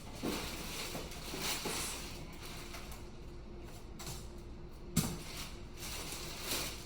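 Handling noises from a car seat and its parts being moved about: rustling and several knocks, the sharpest about five seconds in.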